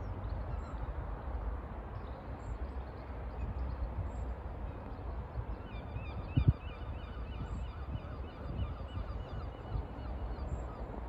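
Wind buffeting the microphone with a low rumble. About halfway through, a quick run of short, repeated high calls, about three a second, goes on for several seconds, with a single thump just after it begins.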